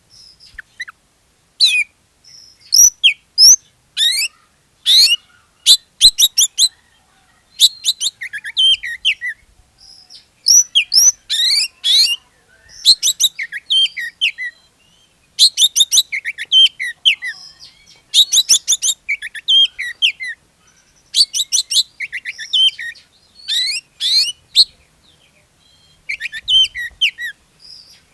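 Oriental magpie-robin singing loudly: short phrases of fast, high, repeated chirps and trills, broken by brief pauses.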